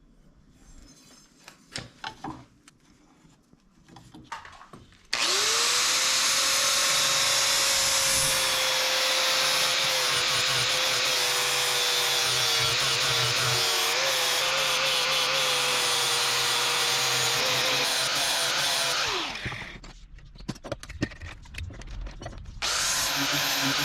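Electric power tool starting up, running with a steady whine that wavers slightly as it works, and spinning down after about fourteen seconds. A few light handling clicks follow, and the tool starts again near the end.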